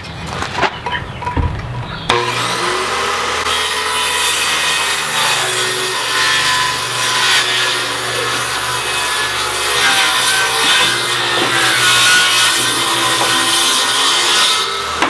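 Corded circular saw starting about two seconds in and cutting lengthwise through the wooden boards at the edge of a door opening, trimming the opening wider. Its motor pitch shifts slightly as the blade takes the load.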